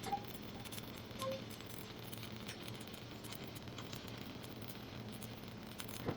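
Stick welding with a 7018 rod: a faint steady crackle of the arc, with a couple of light metallic clinks near the start and about a second in.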